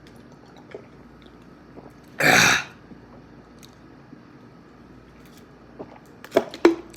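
A person with carbonated Sunkist orange soda, working up a burp: one short hissing burst about two seconds in, then a few small clicks near the end.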